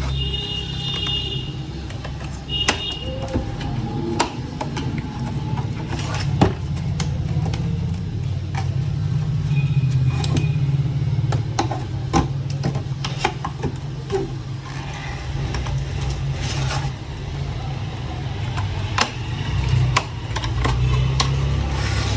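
Scattered clicks and knocks of tools and monitor parts being handled as an LCD computer monitor is taken apart for a screen replacement, over a steady low hum.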